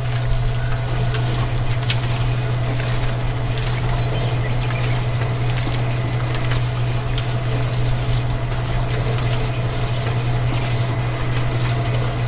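Small electric motor of a miniature homemade concrete mixer running steadily, turning the drum with a constant low hum.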